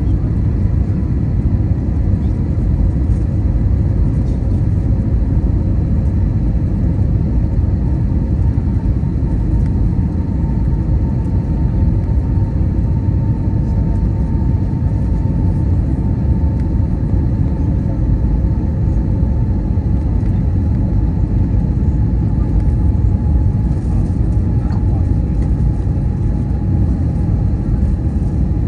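Steady cabin noise inside an Airbus A320neo on approach: a dense low rumble of airflow and engines, with a faint engine tone slowly dropping in pitch.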